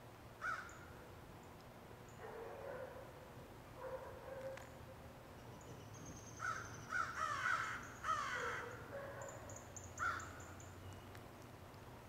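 Crows cawing: a single caw, a few scattered calls, then a run of several loud caws about six to eight and a half seconds in, and one more caw near ten seconds.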